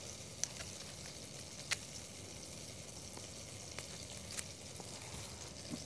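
Butter sizzling faintly in a pot as it browns, with a few sharp pops.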